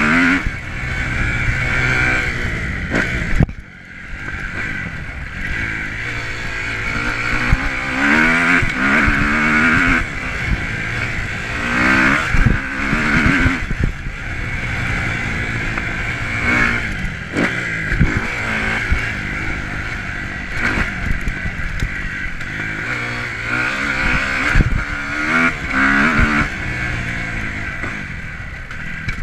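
Single-cylinder four-stroke engine of a 2009 Kawasaki KX250F motocross bike, heard from on board as it revs up and falls back again and again through the gears under hard riding. The throttle is briefly shut off about three and a half seconds in.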